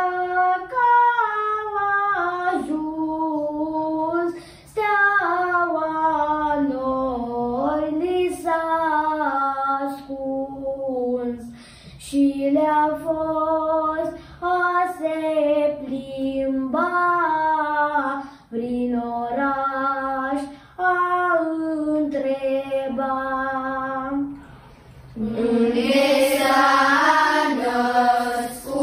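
Children's vocal group singing a Romanian Christmas carol without accompaniment. A single melody line comes in phrases with short pauses for breath, and near the end the singing gets louder and fuller.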